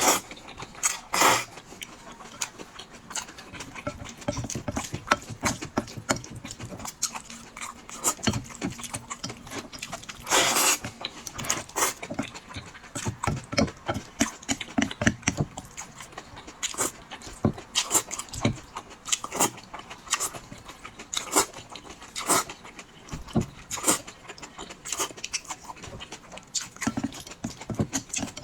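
Close-miked eating sounds of a person eating noodles: irregular chewing and lip-smacking clicks throughout, with a longer, louder noisy sound about ten seconds in.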